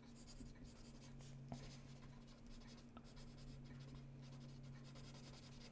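Faint scratching of a pencil drawing on paper, with a couple of small ticks, over a steady low hum.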